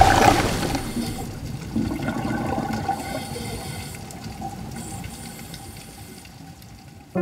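A body plunging into the sea, heard from under the water: a loud rush of water and bubbles at the start that fades steadily into a muffled underwater hush.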